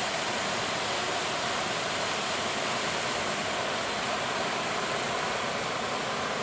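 Steady roar of ocean surf, an even rushing noise with no separate wave crashes standing out.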